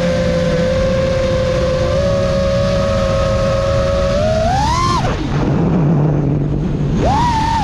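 Motors of a 5-inch FPV racing quadcopter (Emax Eco II 2306 1700KV motors on 6S with tri-blade props) whining steadily. About four and a half seconds in, the whine rises sharply as the throttle is punched. It then drops out for about two seconds, leaving only a low rumble, as the throttle is chopped. The whine snaps back high near the end.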